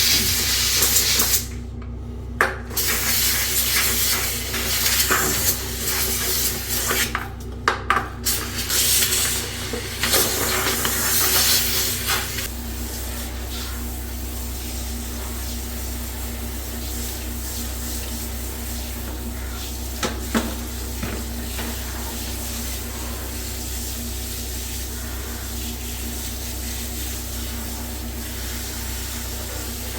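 Liquid spraying in hissing bursts with short pauses and a few light knocks for about the first twelve seconds. It then settles into a steady, quieter hiss.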